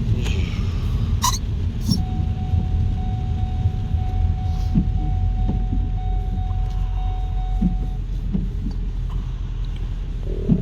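Car cabin noise on the move: a steady low rumble of road and engine. Two sharp clicks come about a second in, and a faint steady tone lasts for several seconds in the middle.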